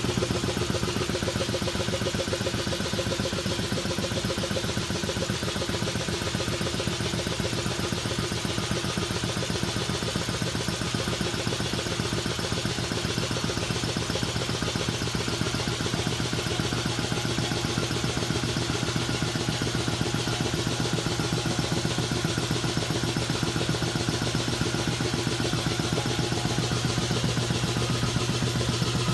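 Champion two-stage air compressor with an R15 pump driven by a 3 hp single-phase electric motor, running steadily with a fast, even pulse of pump strokes over a low hum.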